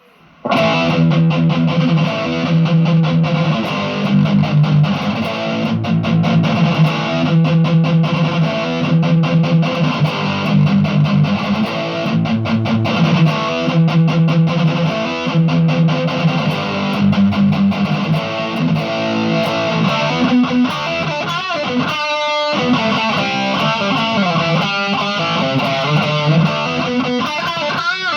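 Music led by electric guitar with a steady beat, briefly dropping out about three quarters of the way through.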